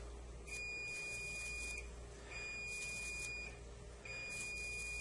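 Electrosurgical cautery unit sounding its steady high activation beep three times, each a little over a second long with short gaps between. Each beep marks a pulse of current as the probe cauterizes the curetted wound base.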